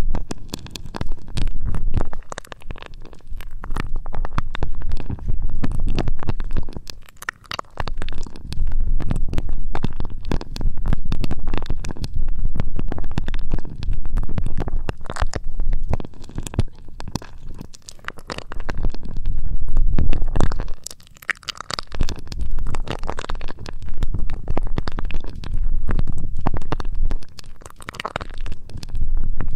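Close ear-cleaning ASMR on an ear microphone: dense crackling scratches and rubbing over a low rumble. It comes in strokes a few seconds long with brief lulls.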